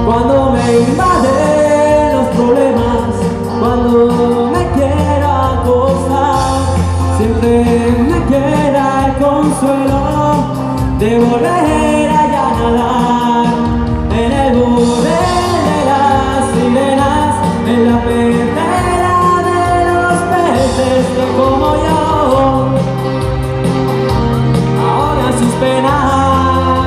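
Male solo singer performing a Spanish pop song into a handheld microphone over instrumental backing, heard through the stage sound system.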